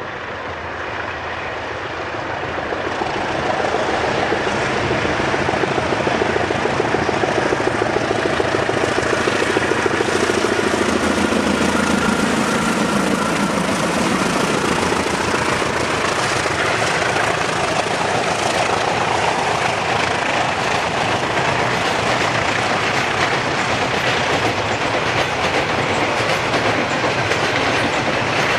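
Class 35 diesel locomotives growing louder as they approach and pass, their engine note dropping in pitch as they go by about halfway through. Then comes the steady rolling noise and clickety-clack of the loaded freight wagons on the rails.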